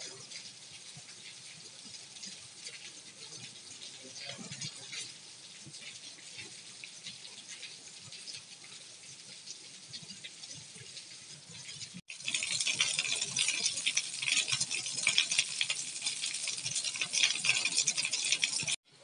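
Heavy rain falling on a flat concrete rooftop covered in standing water, a dense patter of drops splashing into the puddled surface. About twelve seconds in it turns abruptly much louder and closer.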